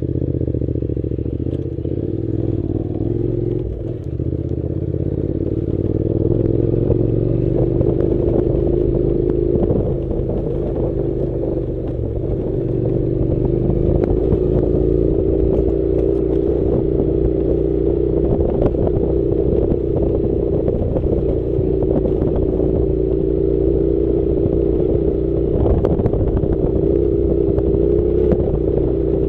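Honda NC700's parallel-twin engine running at a steady pace on a rough off-road track, with scattered clicks and clatter over the engine.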